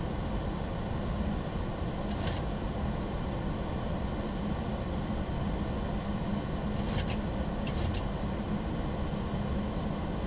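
Steady flight-deck noise of a Boeing 737-800 on short final: a constant rush of air with a low hum. A few brief hissy sounds come about two seconds in and again around seven to eight seconds in.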